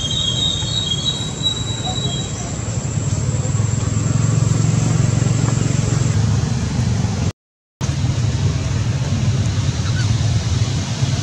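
Steady low rumbling background noise, with a few faint high chirps in the first second. It cuts out completely for about half a second roughly seven seconds in.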